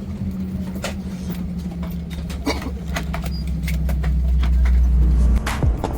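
Airbus A320 cabin noise after landing: a low steady hum whose pitch slowly drops, growing louder and then cutting off suddenly near the end, with scattered clicks and knocks.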